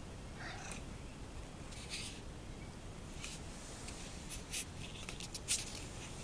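Kittens moving about on cloth in a plastic tub: soft, scattered scratches and rustles, several in quick succession near the end.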